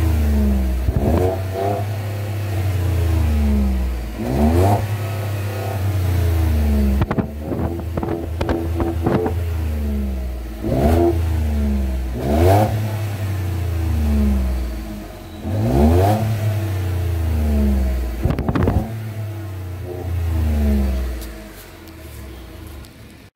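Ford pickup truck engine, heard close at the tailpipe, revved in repeated sharp blips of the throttle, each climbing and falling back to idle, with a quick run of short blips about eight seconds in. It settles back to a quieter idle near the end.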